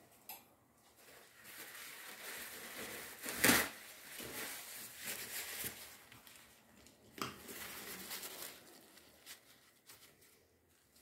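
Rustling and handling noises of a paper towel and painting supplies being picked up and moved, with a sharp knock about three and a half seconds in and another near seven seconds.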